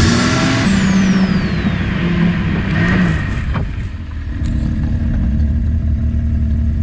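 Snowmobile engine running, its pitch rising and falling with the throttle for the first few seconds, easing briefly, then holding steady.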